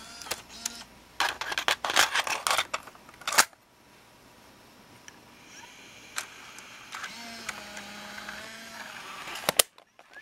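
A quick run of sharp plastic clicks and rattles as a tape cassette is fitted into the open cassette compartment of a Sony Digital8 camcorder. Then a quieter stretch, and one more sharp click near the end.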